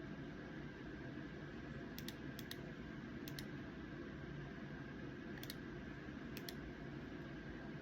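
Faint steady hum and hiss of a quiet room, with a handful of soft light clicks, some in quick pairs, spread through it. No clear snoring is heard.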